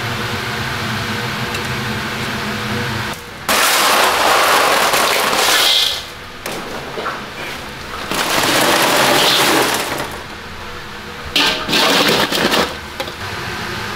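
Crushed ice crunching and clattering as a metal pot is pushed and turned down into it in a stainless steel sink to chill, in three loud spells. A steady ventilation hum fills the first three seconds.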